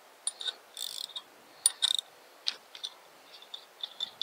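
Steel pieces of a power steering pulley installer tool clinking as they are taken off the pump's center screw: a string of light metallic clicks, coming closer together near the end.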